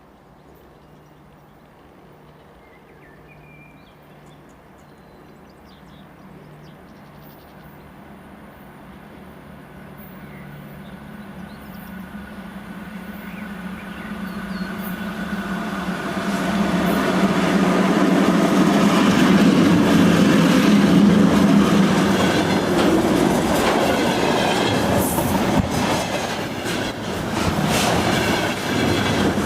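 A 2ES6 'Sinara' electric locomotive hauling a container train draws nearer. A low, steady hum grows louder until it is loudest about two-thirds of the way in, then turns to rapid clickety-clack of wagon wheels over the rail joints near the end.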